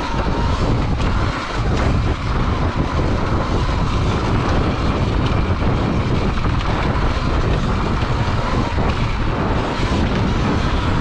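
Electric dirt bike riding a dirt trail at speed: wind buffeting the microphone and tyre rumble over the dirt, with a thin, steady whine from the electric motor.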